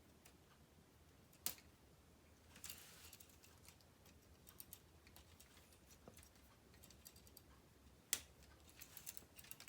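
Plastic K'NEX rods and connectors being handled and clipped together: two sharp snaps, about a second and a half in and again near the end, with light clicks and rattles between.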